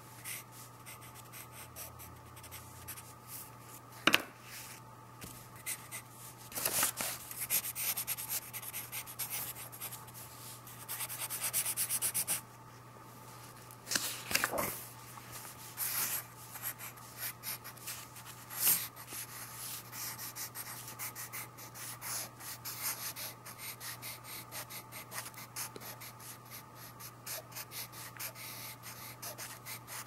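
Pencil sketching on paper: a continuous run of short scratchy strokes, with a stretch of rapid back-and-forth hatching strokes a little before the middle. A single sharp tap about four seconds in.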